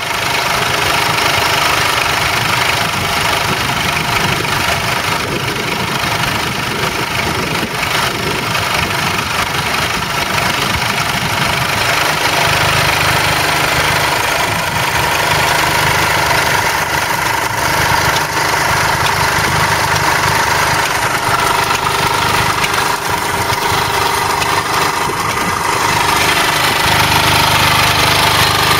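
Stuart Turner R2 generator set's small single-cylinder engine running steadily with a fast, even firing beat.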